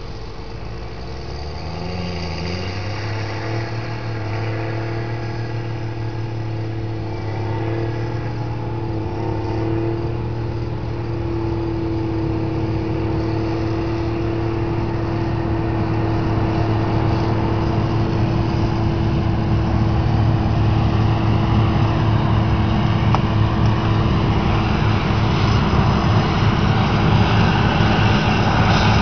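Diesel engine of heavy harvest machinery revving up about two seconds in, then running steadily and growing louder as the machine comes closer.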